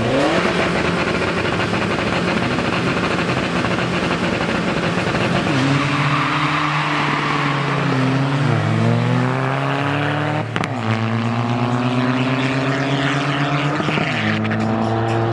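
Two drag-racing hatchbacks launch from the start line and accelerate hard. The engines rev up and drop back at each gear change, about four upshifts in all. There is a single sharp crack about ten seconds in.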